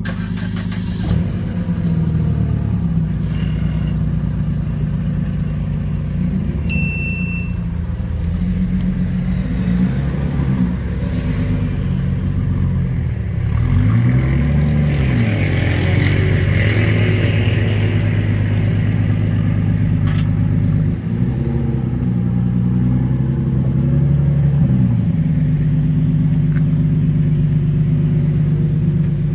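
Nissan 370Z Nismo's 3.7-litre V6 idling through its exhaust, which is fitted with an exhaust valve: a deep, steady note whose revs sag and rise gently a few times.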